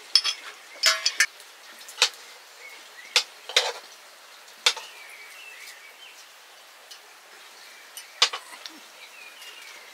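Metal utensils clinking against dishes or a pot: about eight sharp, irregular clinks, several bunched in the first four seconds and one more near the end.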